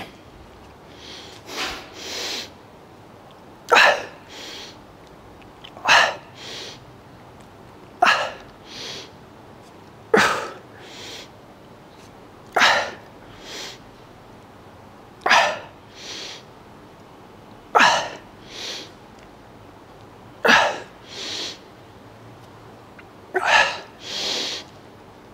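A man's sharp, forceful exhalations, about ten of them, one with each repetition of a seated two-arm dumbbell hammer curl. Each is followed by a softer breath in. They come about every two and a half seconds, spacing out a little toward the end as the set gets harder.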